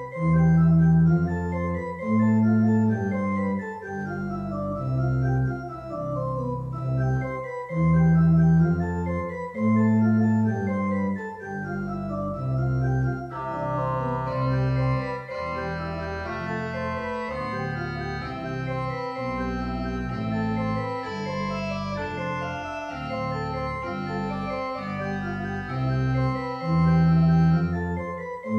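Organ playing held chords over a moving bass line; about halfway through, brighter, higher notes join in.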